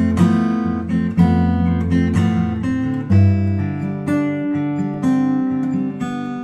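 Background music: acoustic guitar strummed in a steady rhythm of chords.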